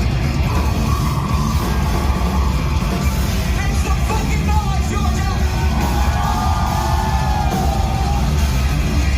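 Loud live heavy rock music: a band playing with a singer's voice over it.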